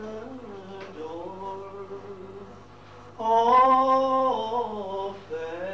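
A man singing a traditional Irish ballad unaccompanied, holding long drawn-out notes on the words "adore" and "Oh"; the loudest, highest note swells about three seconds in.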